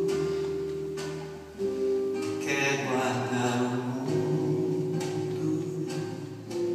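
Live band music: acoustic guitar picking with other instruments and some singing, a long held note fading out in the first second and a half. Heard from the audience in a large concert hall.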